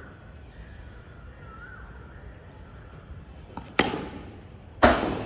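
Cricket bat striking the ball with a sharp crack, followed about a second later by a second, louder sharp knock near the end.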